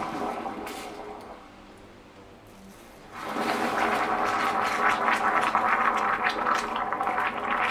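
Liquid bubbling and churning in a glass bowl around a diecast car body. It gets much louder and more turbulent about three seconds in.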